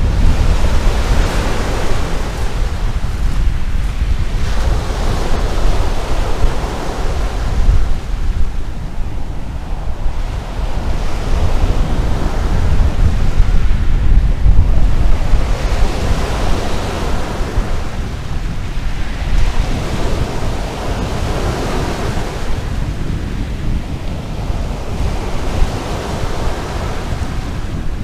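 Small sea waves breaking and washing up over a fine-pebble and sand beach, the surf swelling and ebbing every few seconds. Wind buffets the microphone with a steady low rumble.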